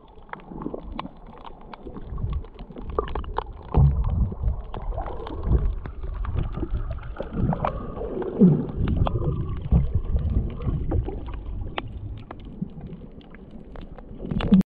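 Muffled water sound picked up by a submerged camera: irregular low gurgling swells as the swimmer moves through the water, with many small scattered clicks.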